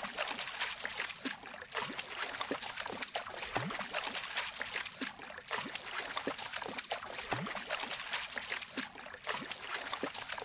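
Water trickling and bubbling in an aquarium: a steady rush of water with many short bubbly blips throughout.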